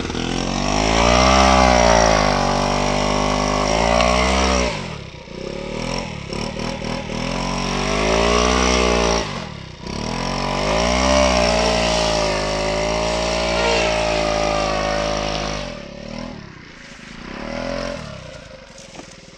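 Small scooter engine revved hard in three long bursts, its pitch rising and falling, labouring to push the scooter through a muddy bog. It drops to quieter running near the end.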